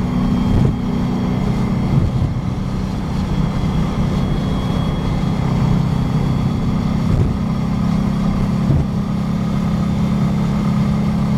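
1966 Porsche 912's air-cooled flat-four engine running steadily at freeway cruise, heard from inside the cabin, with a few brief knocks along the way.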